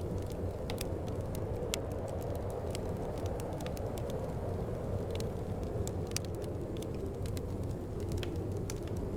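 Fireplace crackling, with irregular sharp pops and snaps over a steady low rush of wind.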